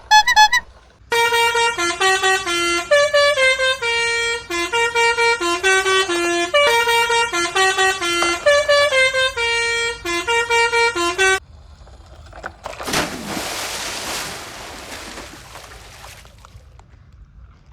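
A musical vehicle horn playing a fast tune of short stepped notes for about ten seconds, then a hiss that fades away over about three seconds.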